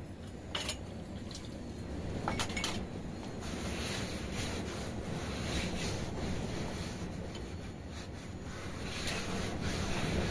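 Small glass tumblers clinking against each other and the tray a few times in the first three seconds as they are handled. Under them runs a steady rushing noise that swells after about two seconds.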